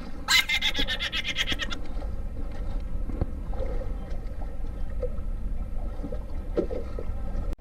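Wind rumbling on the microphone and water lapping against a small outrigger boat at sea. Near the start comes a quick, even run of sharp clicks lasting about a second and a half.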